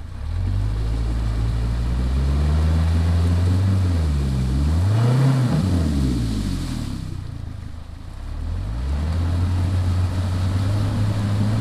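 Mercury outboard motor running, picking up just after the start. Its pitch swings up and down through the middle as the throttle is worked, dips about eight seconds in, then settles into a steady run.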